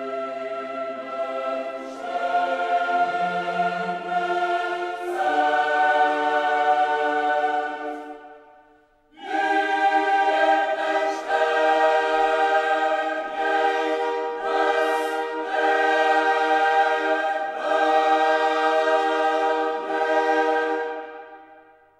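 Background music of a choir singing slow, held chords that change every couple of seconds. It fades away about eight seconds in, comes back a second later, and fades out again at the end.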